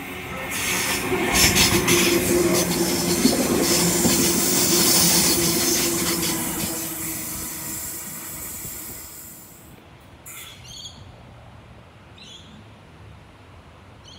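H-set OSCAR double-deck intercity electric train passing at speed: a loud rush of wheel and track noise with a steady motor whine. It builds quickly, holds for several seconds, then fades as the train goes away. A few short, high squeaks follow near the end.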